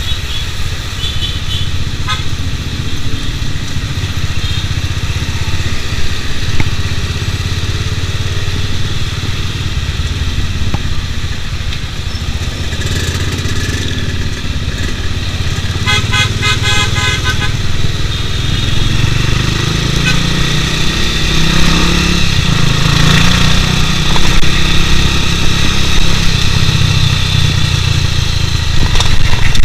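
Bajaj Pulsar 200 DTSI's single-cylinder engine running under the rider in city traffic, heard through an action camera's waterproof case. A vehicle horn sounds in quick pulses about halfway through. Later the engine note rises and grows louder as the bike speeds up on an open road.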